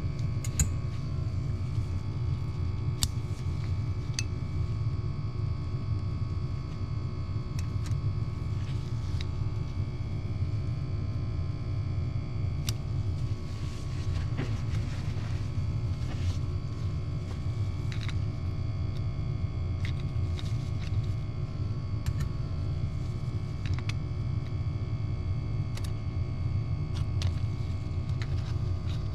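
Scattered light metallic clicks and clinks as steel and friction plates are lifted out of a motorcycle clutch basket and set down, over a steady low background rumble.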